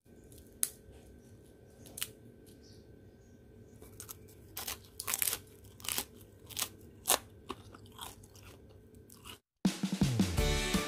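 Thin, crisp Thai pancake (khanom bueang) shells crunching and crackling, a series of sharp single crunches about a second apart, some in quick pairs. Music begins near the end.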